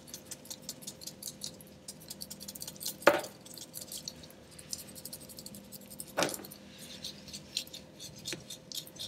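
Small plastic sieve of powdered sugar shaken and tapped with a finger, a run of light quick ticks and rattles, with two louder knocks about three and six seconds in.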